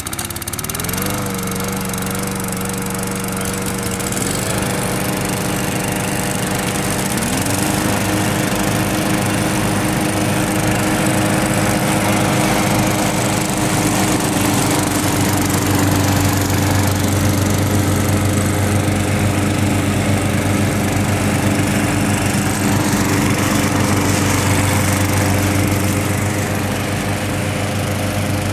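Three Briggs & Stratton push-mower engines catching one after another in the first few seconds, one rising in pitch about seven seconds in. They then run together steadily at a constant speed.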